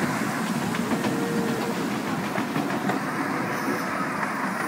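Miniature 7¼-inch gauge steam train running along the track, heard from the passenger car behind the locomotive: a steady rumble of wheels on the rails with faint clicks.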